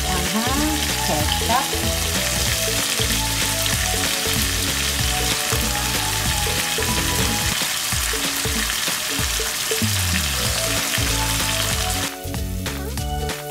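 Shrimp and tomatoes sizzling in oil in a hot wok, a steady frying hiss. The sizzling drops away suddenly about a second before the end.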